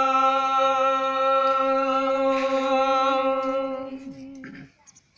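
A man singing a Gojri folk song unaccompanied, holding one long steady note that fades out near the end.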